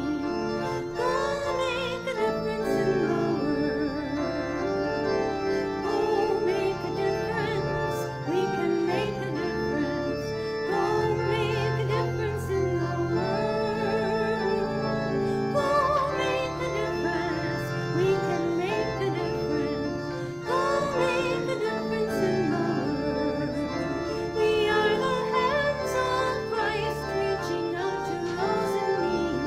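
Closing hymn after Mass: a singer with vibrato carries the melody over sustained organ chords, without a break.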